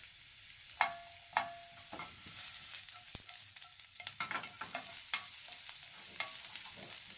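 Chopped garlic and onion sizzling in hot oil in a nonstick frying pan, a steady hiss, while a plastic spoon stirs them, scraping and tapping against the pan now and then.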